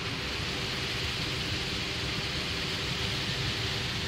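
Automatic car wash spraying water and working over the car: a steady, dense hiss with a low machine rumble underneath.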